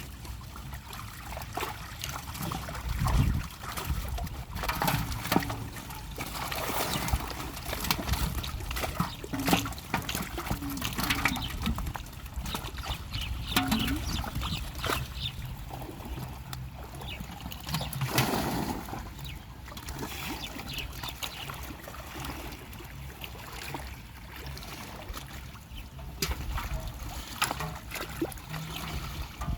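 Pond water splashing and trickling, with irregular splashes and drips throughout.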